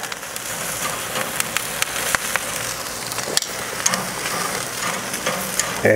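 Chicken wings sizzling over the open flames of a mesquite lump charcoal fire in a kamado grill, a steady hiss with sharp crackles and pops scattered throughout.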